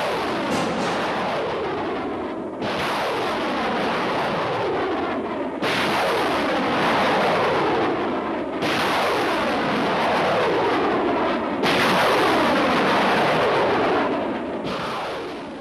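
MLRS rockets launching one after another from an M270 launcher, a new rocket-motor blast starting about every three seconds. Each one is a loud rushing noise that falls in pitch as the rocket climbs away. The last one fades near the end.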